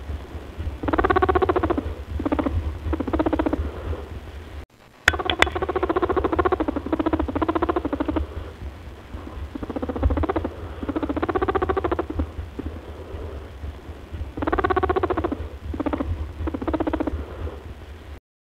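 Rabbit purring, the sound of a very content rabbit: repeated bouts of rapid pulsing, each a second or two long, over a steady low hum, with a brief dropout and a click about five seconds in.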